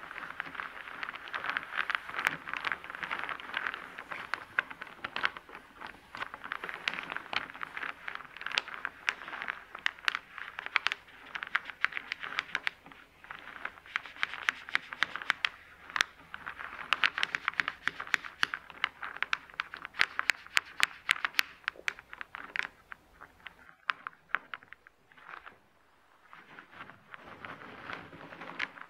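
Small round wooden discs clattering and scraping against each other and the hard surface as hands push and shuffle them about: a dense run of quick, irregular clicks over a rustle, thinning out and going quieter for a couple of seconds near the end.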